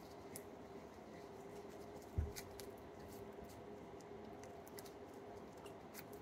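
Slime being kneaded and stretched between the hands, giving faint scattered clicks and small squishy pops, with one dull thump about two seconds in, over a faint steady hum.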